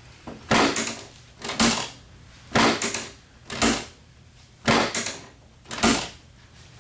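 Chiropractic drop table's hip (pelvic) drop section clacking during drop adjustments on the hips: three rounds, each a quick double clack followed by a single clack about a second later.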